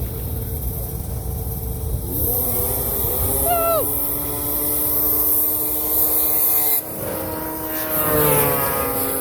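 Snowmobile engines running, one revving up with its pitch climbing about two seconds in and holding high. After a sudden cut, another engine revs up near the end.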